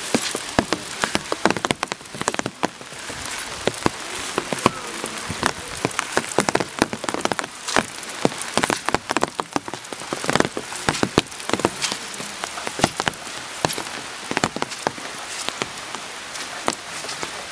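Steady rain falling, with heavy drops tapping sharply and irregularly on a nearby surface.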